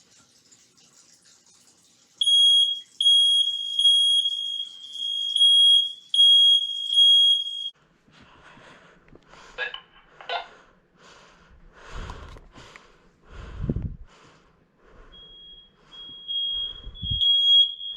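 Smoke alarm set off with its test button, sounding a loud, high-pitched beeping alarm from about two seconds in until about eight seconds in. After it stops there are several seconds of scuffing and a few low thumps, then the alarm tone starts again near the end and grows louder.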